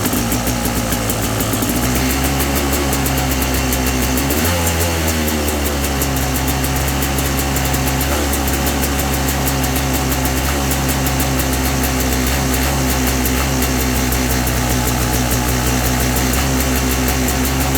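Carburetted dirt bike engine held at a steady part throttle, running with the misfire and stutter that the owner is trying to cure by rejetting. The engine speed steps up about 2 seconds in and again a little after 4 seconds with a short rise, then holds steady.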